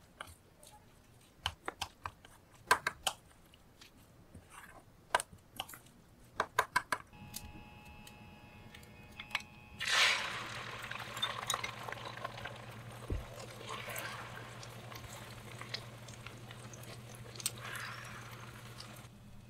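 A silicone spatula clicks and scrapes against a stainless steel bowl while rice is mixed with seasoning. About halfway through, beaten egg poured into a hot non-stick frying pan starts sizzling suddenly and keeps sizzling as it is stirred, over a low steady hum.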